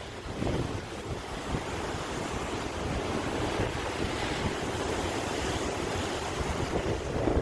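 Sea waves washing steadily, with wind buffeting the microphone; the surge grows a little louder near the end.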